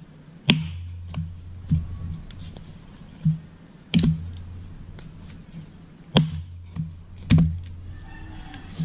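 Axe splitting dried ipil-ipil firewood on a chopping block: sharp wooden strikes as the blade hits the wood, four hard blows spaced a second or more apart with lighter knocks in between.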